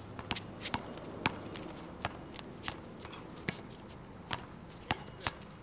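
A basketball bouncing on an outdoor asphalt court, with the players' sneakers stepping on it: a string of sharp, irregularly spaced thuds.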